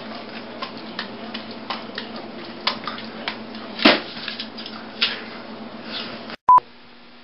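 Light taps and soft knocks of fruit being juggled and caught by hand over a steady room hum, with one louder sound about four seconds in. A short, loud beep sounds near the end.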